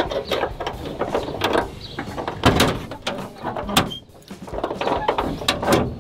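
Scattered metal knocks, clicks and rattles from a steel truck hood being held up and shifted while its hinge bolts are started. The loudest knock comes about two and a half seconds in.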